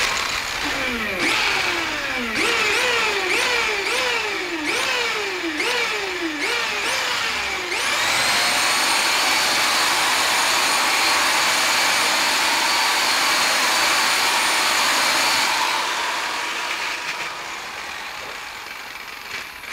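Electric rotary polisher with a pad compounding car paint. For the first eight seconds the motor speed rises and falls over and over, about every three-quarters of a second. It then runs up to a steady high whine for several seconds and winds down, fading near the end.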